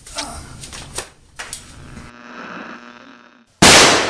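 A few light clicks and knocks, then a short steady pitched hum. About three and a half seconds in comes one sudden, very loud gunshot-like bang that rings away over about half a second.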